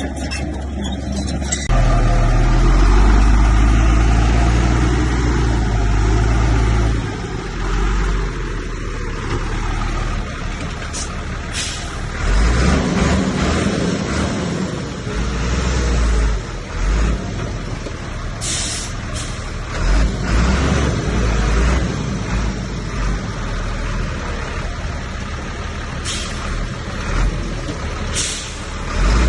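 Heavy diesel earthmoving machinery running, a deep engine rumble that swells loudest a few seconds in and pulses again in the middle. Several short, sharp hisses of air cut in during the second half.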